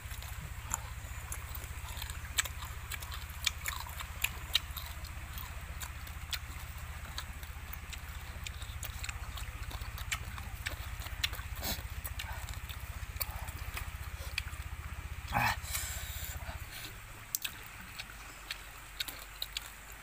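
Close-up chewing and crunching of grilled sparrows eaten off the skewer, with many scattered sharp clicks and smacks. About fifteen seconds in comes a short sound that slides downward in pitch.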